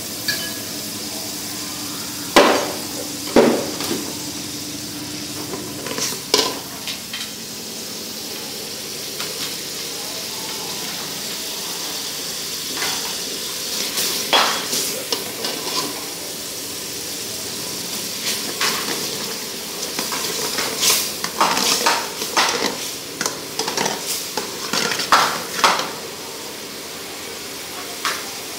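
A metal ladle stirring and scraping around a metal wok while frothy liquid in it sizzles steadily. The ladle knocks sharply against the pan a couple of times early on and clinks repeatedly in the last third.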